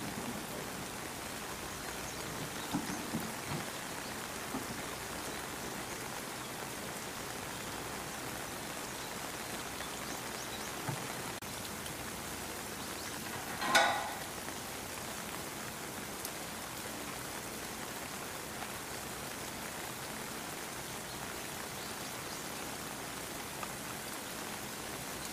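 Steady rain falling, an even hiss throughout. About halfway through there is a single short, sharp knock.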